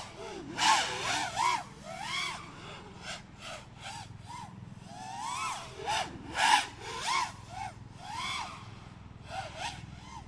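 FPV quadcopter's motors whining, the pitch rising and falling in quick arcs again and again as the throttle is punched and cut, in a high-rate PID tuning test flight.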